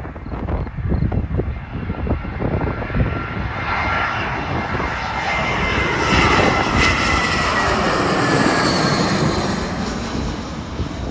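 Fixed-wing aircraft on landing at Iasi Airport passing by: its engine noise swells to a peak about halfway through, with a whine that slides down in pitch, then eases off. Wind buffets the microphone in the first seconds.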